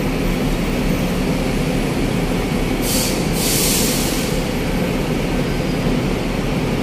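Diesel city buses idling and moving at a bus terminal, a steady engine rumble with a low hum, joined by two short bursts of hissing about three seconds in.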